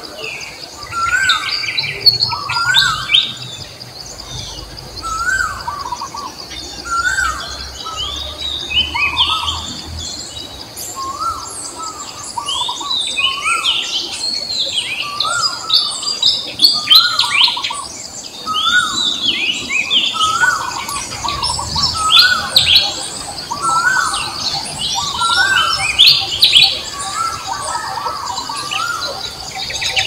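Forest birdsong: several birds chirping, one repeating a short whistled phrase every second or two, over a steady high-pitched hum.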